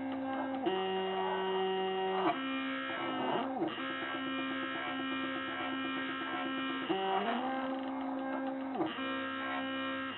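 Stepper motors of a DIY wooden-frame GRBL CNC mini router whining as the machine moves along its axes. Each move holds a steady tone, and the pitch jumps to a new one every few seconds with brief dips and glides as one move ends and the next begins, over a steady low hum.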